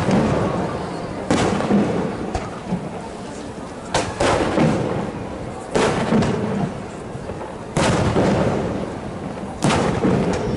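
Aerial firework shells bursting with sharp booms, one about every two seconds. Each boom trails off in a long rolling rumble.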